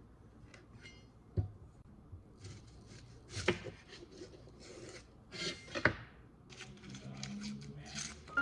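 Santoku knife cutting a raw onion on a bamboo cutting board: a sharp knock of the blade on the wood, then several rasping, crunchy cuts with clicks as the edge meets the board, and the dry papery onion skin rustling as it is peeled off.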